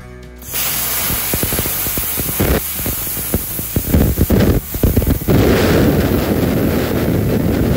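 BestArc BTC500DP plasma cutter cutting through a steel horseshoe at about 30 amps: a loud, steady hiss of air and arc with crackling. It starts about half a second in and cuts off suddenly at the end.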